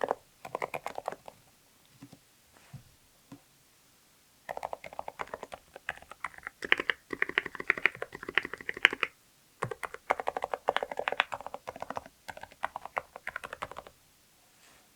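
Typing on a Zoom65 mechanical keyboard with factory-lubed Kailh Deep Sea Silent Box Islet silent linear switches and PBT double-shot keycaps on an aluminium plate. A short run of keystrokes, a few single presses, then two long fast runs of typing that stop a second before the end.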